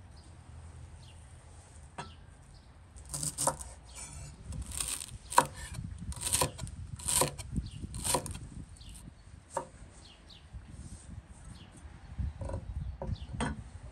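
A chef's knife chopping fresh green herb stems on a thick wooden cutting board: an uneven run of sharp knife strikes on the wood about three seconds in, lasting several seconds, then a few more strikes near the end.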